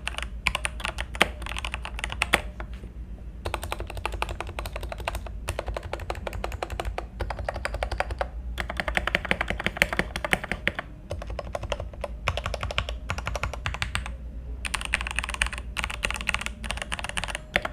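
Typing on a FreeWolf K87 mechanical keyboard with Jixian red linear switches: rapid runs of key clacks in bursts a few seconds long with short pauses between them.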